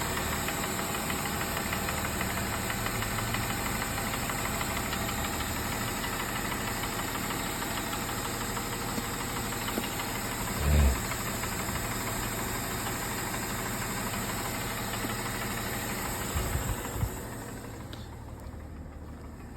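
Mercedes E350's 3.5-litre M272 V6 idling low while it warms up, with a rattling knock from the engine: a sign of scored cylinder walls letting the pistons knock. There is one short heavy thump about 11 seconds in, and the engine sound drops away near the end.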